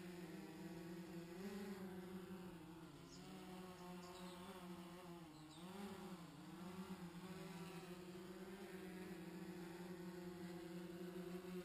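DJI Phantom 3 Advanced quadcopter's propellers humming in flight, a steady buzz whose pitch rises and falls a few times as the motors change speed while it manoeuvres.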